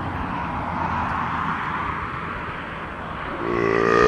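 A steady rushing noise like a passing vehicle. About three and a half seconds in, a low, buzzy, belch-like sound begins.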